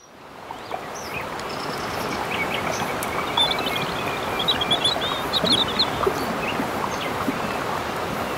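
Steady rush of flowing water that fades in over the first couple of seconds, with small birds chirping over it for a few seconds in the middle.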